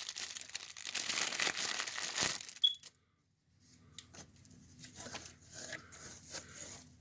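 Packaging crinkling and tearing as a boxed item is opened, loud for about three seconds, then cut off suddenly, followed by fainter, scattered rustling.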